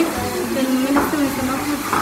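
Indistinct women's voices talking in a busy kitchen, with a wooden spoon stirring in a steel pot and a couple of short knocks, about a second in and near the end.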